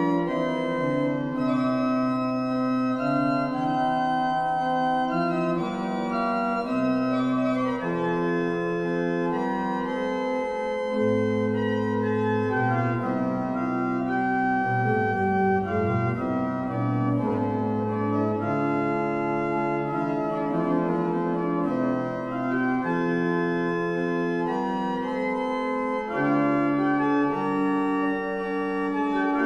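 The 1511 Jan van Covelens small pipe organ of the Laurenskerk, Alkmaar, playing on its flute stops, Holpijp 8' and Koppeldoof 4'. It plays a steady piece in several voices, with held notes moving against one another.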